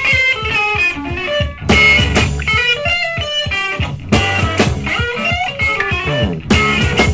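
Electric blues band playing a boogie: two electric guitars over drums, without vocals, with a riff that comes back with a strong accent about every two and a half seconds.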